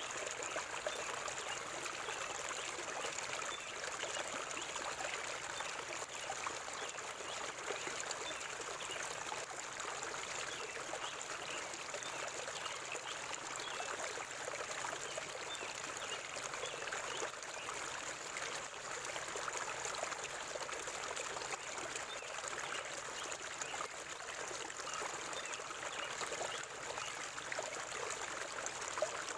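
Forest river water flowing steadily, a continuous rush with small trickling splashes.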